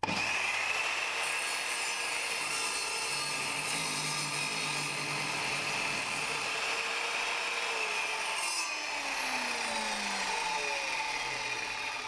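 Evolution R210SMS+ sliding mitre saw running and cutting through a block of softwood, a steady high motor whine over the rasp of the blade in the wood. In the last few seconds its pitch starts to fall as it winds down.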